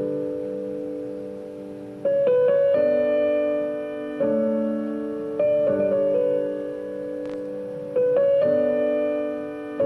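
Slow, gentle piano music: chords struck every second or two and left to ring and fade.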